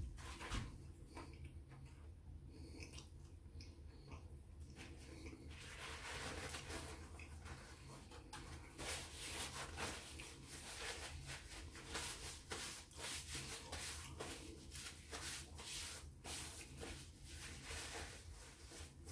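Paper napkin rustling and rubbing as greasy hands are wiped clean, quiet at first and then a dense run of crinkles and rubs from about six seconds in.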